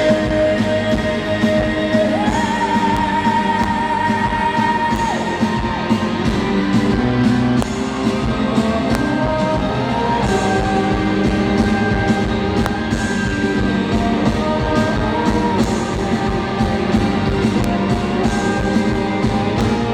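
Live pop-rock band playing with singing, a long held note standing out a couple of seconds in over a steady beat.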